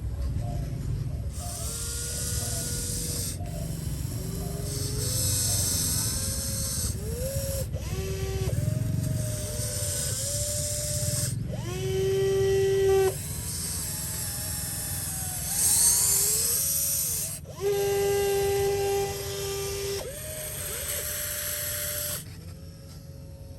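Small electric motors whining in a series of short runs, each one rising in pitch as it spins up, holding steady for a second or two, then stopping abruptly.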